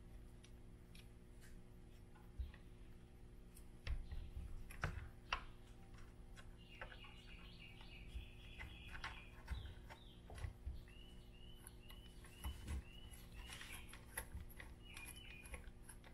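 Faint background birds chirping in quick repeated notes, with scattered small sharp clicks and taps from the drive-shaft parts and grub screws being handled and fitted.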